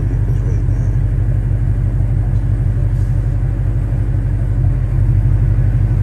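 Ford Mustang GT's 5.0-litre V8 idling steadily, an even low-pitched drone.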